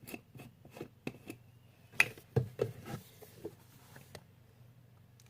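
Clicks and knocks of slime-making supplies handled on a tabletop as a bottle of clear glue is readied. The sharpest knock comes about two seconds in, followed by a quick run of smaller taps, and the sounds die away about four seconds in.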